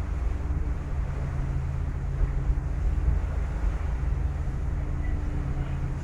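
Staten Island Ferry's engine running with a steady low hum, under wind buffeting the microphone and the wash of the bay's water.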